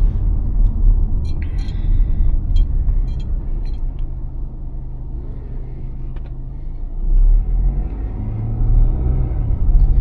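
Car cabin road and engine noise while driving: a steady low rumble with a faint hum and a few light clicks.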